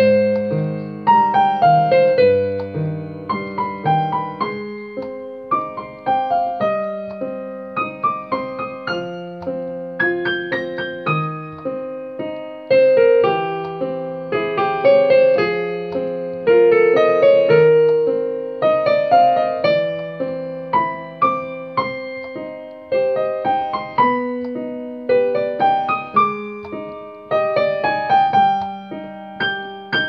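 Solo piano playing a melody over held low notes, each note struck and then fading as the next comes in.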